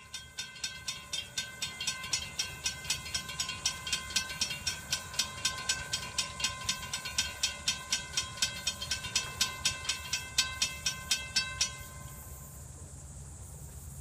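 Railroad grade-crossing warning bell ringing at about four strokes a second while the crossing gates lower. It cuts off suddenly about twelve seconds in, once the gates are down.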